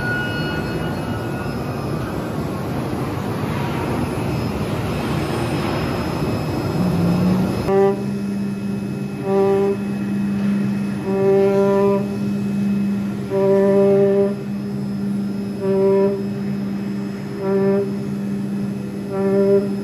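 CNC oscillating-knife cutting machine running while it cuts sound insulation cotton. At first it is a steady rushing noise. About eight seconds in, this gives way to a steady low hum with a pitched whine that rises and falls every second or two as the cutting head moves.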